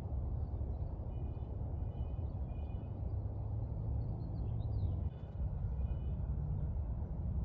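A small bird repeating short calls, roughly two a second, with a brief rising call about halfway through, over a steady low rumble.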